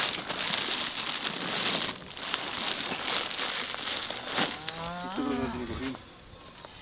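Feed sack rustling and crinkling as it is lifted and carried, then one of the cattle moos once, about five seconds in.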